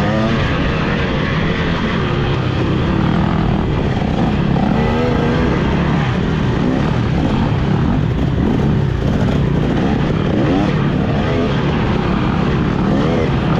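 Motocross dirt bike engine racing on the track, revving up and down again and again, its pitch rising and falling every second or two as the throttle is worked.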